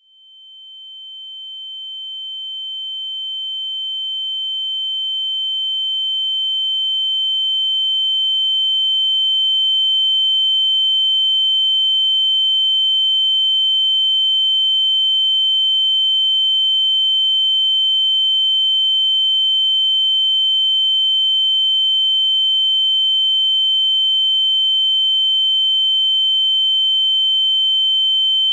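Ear-ringing (tinnitus) sound effect: a steady, high-pitched electronic tone that fades in from silence over about the first ten seconds and then holds at a constant loud level. A fainter lower tone sits beneath it.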